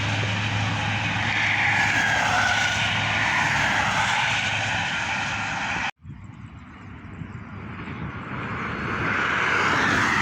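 Buses passing at speed on a toll road: a steady rush of engine and tyre noise, with a falling pitch as one goes by. About six seconds in the sound cuts off suddenly, then builds again as another vehicle approaches.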